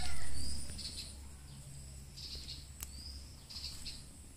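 A rooster's crow trailing off in the first half-second over a low rumble. After it come faint, high chirps in short clusters about every second and a half.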